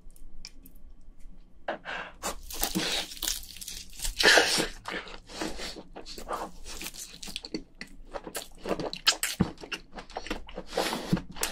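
A person chewing soft, wet crayfish meat, with a long run of irregular wet smacking mouth sounds beginning about two seconds in.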